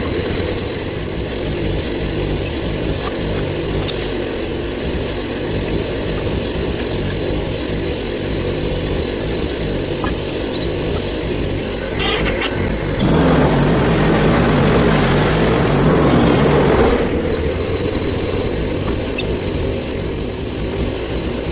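Portable bandsaw mill's engine running steadily while the band blade saws a log into a cant. The sound swells louder for a few seconds about two-thirds of the way through.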